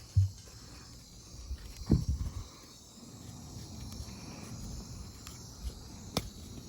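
Pigs eating watermelon, with a low grunt right at the start and a cluster of grunts and munching about two seconds in, over a steady high insect buzz. A single sharp click comes near the end.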